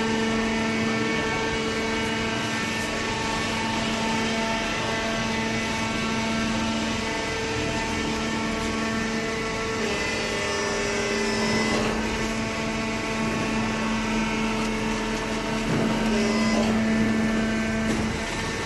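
Hydraulic paper baler's electric motor and hydraulic pump running with a steady hum, its pitch shifting slightly about halfway through.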